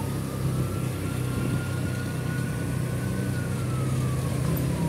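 A vehicle engine running steadily under a siren that wails slowly, rising for about three seconds and then falling.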